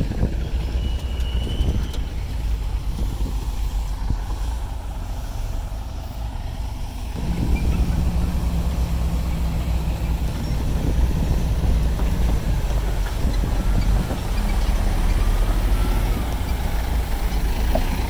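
Heavy earthmoving machine's diesel engine running steadily; about seven seconds in it gets louder, with a steadier engine tone.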